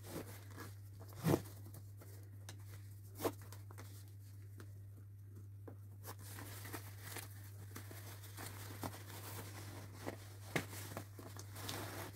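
Faint rustling of clothing and boot fastenings being handled, with a few short sharp clicks, over a steady low hum.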